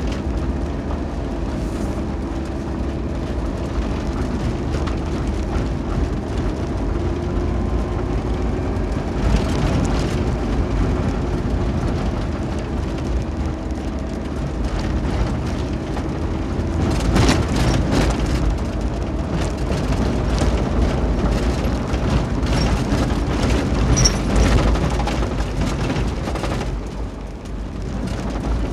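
Cabin sound of a 4x4 driving on a gravel dirt road: a steady engine hum and tyre rumble, with bursts of clatter from bumps and loose stones, the biggest a little past halfway.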